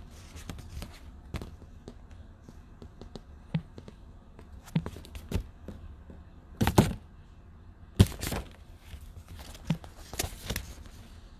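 Handling noise from a hand-held smartphone: irregular taps, knocks and rubs of fingers against the phone, the loudest knocks a little past halfway.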